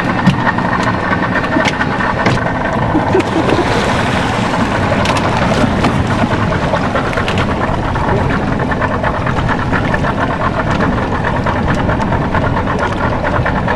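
A boat engine running steadily under load, with scattered knocks and clicks over it.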